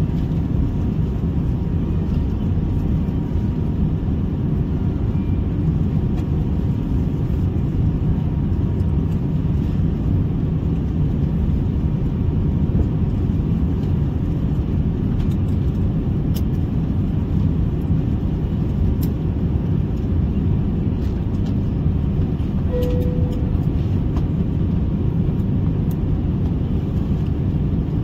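Steady low rumble of engine and airflow noise inside the cabin of an Airbus A350-900 airliner, with one short beep about four-fifths of the way through.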